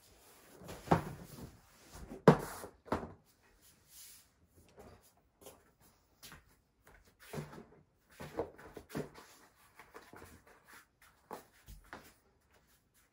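A rolled foam yoga mat being dropped and unrolled onto a laminate floor: a few sharp slaps and thumps in the first three seconds, then softer rustling and light thuds as the mat is handled and bare feet step onto it.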